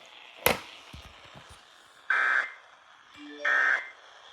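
Emergency Alert System end-of-message signal: short, loud bursts of raspy digital data tones, two of them about a second and a half apart, marking the end of the warning broadcast. A sharp click about half a second in.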